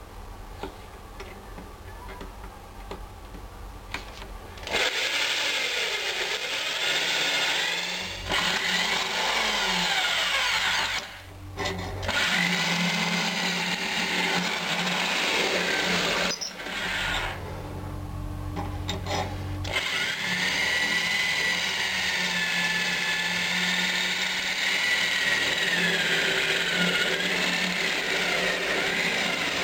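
Corded electric hand drill boring through a metal sickle blade. It starts about five seconds in and runs with a whine that wavers as the bit bites, stopping briefly and starting again a couple of times before running steadily.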